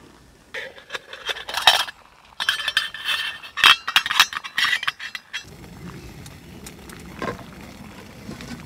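Metal camping pot's lid clinking and rattling against the pot and its wire handle as it is hooked and lifted off, a quick run of clinks lasting about five seconds. After that comes a steady low rumble, with the water in the pot at a boil.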